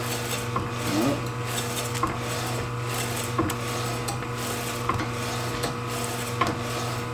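Beswood 250 electric deli slicer running with a steady motor hum while its spinning blade cuts beef tomatoes, with light ticks recurring every second or so.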